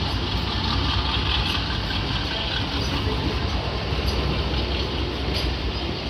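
Passenger train coaches rolling past: a steady rumble of wheels on the rails with faint scattered clicks.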